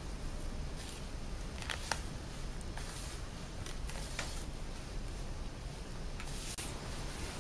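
A hand mixing and kneading flour, egg and sour cream into dough in a plastic bowl: soft rustling and squishing of the crumbly mixture, with a few light ticks.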